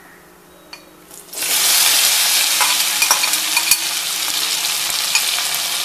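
Boiled potato cubes dropped into hot oil in a kadai, which is quiet at first and then breaks into a loud, steady sizzle about a second and a half in. Clinks and scrapes of the metal ladle against the pan are scattered through the sizzle.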